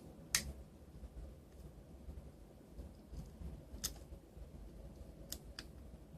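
Four sharp little clicks of small hard parts and tools being handled while a Palm Treo 755p smartphone is taken apart, one near the start, one in the middle and two close together near the end, over a low rumble.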